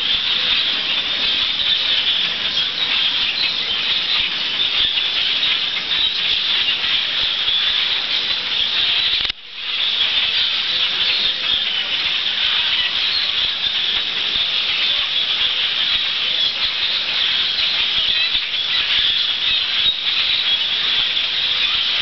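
Dense, continuous chattering and squeaking of a huge migrating bird flock passing overhead: a constant high-pitched din of countless calls. It cuts out for a moment about nine seconds in, then carries on.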